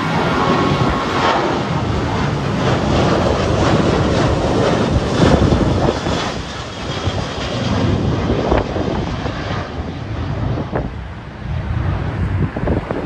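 Jet airliner engines passing, loud for about ten seconds and then dying down, with wind buffeting the microphone.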